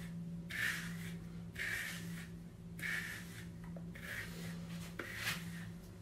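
Hairbrush strokes through dry-shampooed hair, a soft hissing brush about once a second, brushing out the powder residue. A steady low hum runs underneath, and there is a small click about five seconds in.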